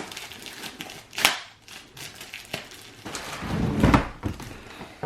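Toy packaging being handled during an unboxing: rustling and a few sharp knocks, with the loudest handling near the end.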